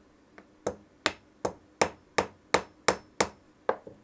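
Light, even tapping with a tool on a small-engine carburetor part, about ten taps at roughly three a second, to coax a stuck old gasket loose.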